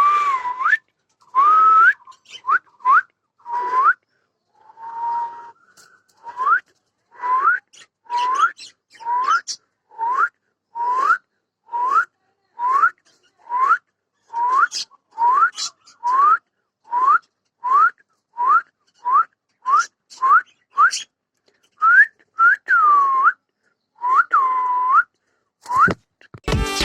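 Clean whistled notes, each a short rising 'wheet', repeated about once a second more than twenty times with silence between; a few near the end rise and then fall.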